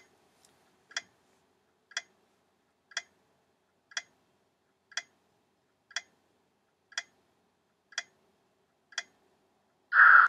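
Countdown-timer sound effect ticking once a second, ten ticks, counting down the time to answer a quiz question. About ten seconds in, a short, louder buzz marks the end of the countdown.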